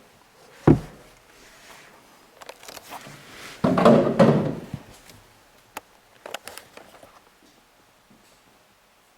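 A sharp thunk a little under a second in, then about a second of loud scuffing and rustling, and a few light clicks afterwards: handling noise in a car cabin.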